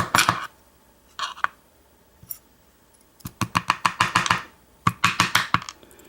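Quick runs of small sharp clicks and taps from the metal parts of an American 1305 padlock being handled and taken apart, four runs in all, the longest lasting about a second.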